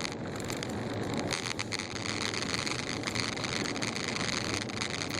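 Car driving on a snow-covered road, heard from inside the cabin: steady tyre and road noise with a fine crackle running through it.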